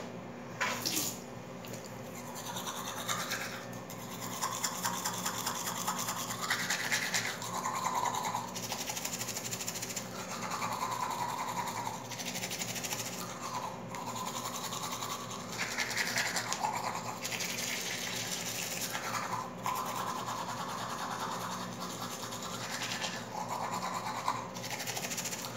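Manual toothbrush scrubbing teeth in a wet, foamy mouth: irregular rasping strokes that swell and fade every second or two with short pauses between.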